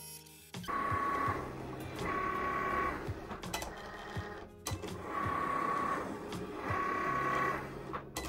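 Cricut Explore Air 2 cutting machine cutting a sticker sheet: a high motor whine comes in four stretches of about a second each as the blade carriage and mat move, with short clicks between them.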